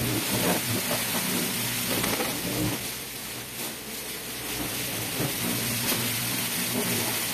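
Pressure washer spraying water: a steady hiss of spray over the low, even hum of the machine's motor and pump.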